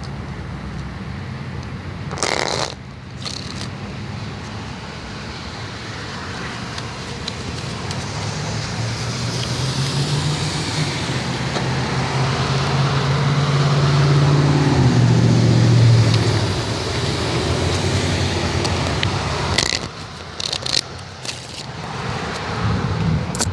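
A motor vehicle passing: its low engine tone grows louder over several seconds, peaks, then drops in pitch and fades, over a steady background hiss. Brief scraping or handling noises come about two seconds in and again near the end.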